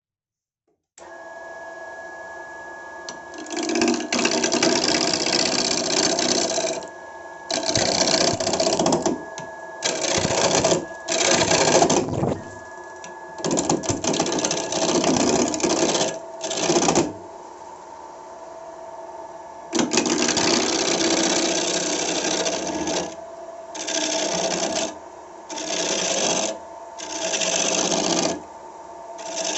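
Wood lathe running, its motor a steady hum that starts about a second in, while a turning tool cuts into the spinning wood in about a dozen loud bursts of one to three seconds each.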